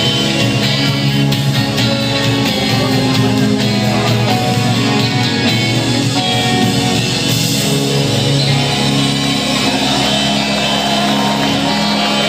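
A rock band playing live, led by guitar.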